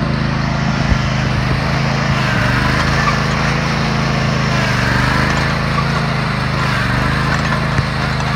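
Toro zero-turn riding mower's engine running steadily as it is driven over grass. Two brief knocks sound about a second in and near the end.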